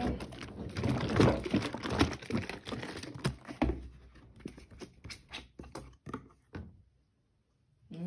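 Plastic fabric-softener bottles being handled: a run of clicks, knocks and plastic crinkles that thins out, then the sound cuts off abruptly to dead silence for about the last second.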